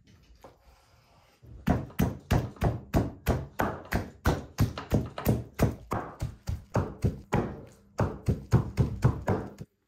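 Cleaver chopping raw liver against a wooden cutting board, about three strokes a second, with a short break near the end before it stops suddenly.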